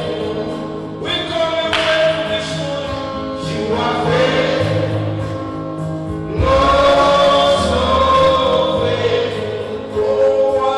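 Gospel choir singing worship music with band accompaniment, sustained sung notes over a steady bass line.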